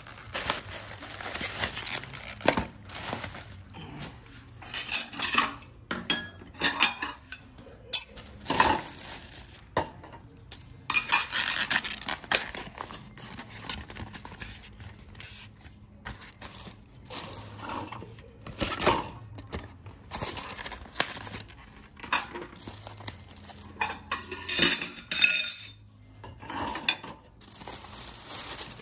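Dishes and cutlery clinking and knocking: irregular clatter of utensils against plates and bowls, with short lulls between bursts.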